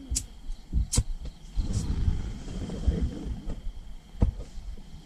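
Handling noise from a handheld camera: rustling and low rumbles with a few sharp clicks, over a faint, steady, high-pitched tone.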